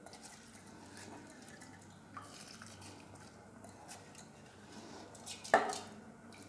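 Soaked rice and moong dal being pushed by hand from a steel bowl into a pot of boiled milk, with faint scraping and clicks, then one loud wet plop as a lump drops into the milk about five and a half seconds in.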